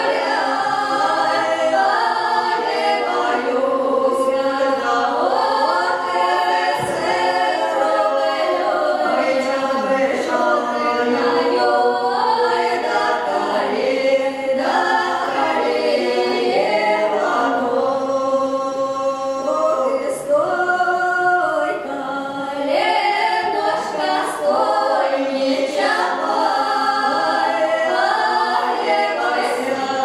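Three women singing a Russian folk song a cappella in several voice parts, with long held notes that bend and slide between pitches.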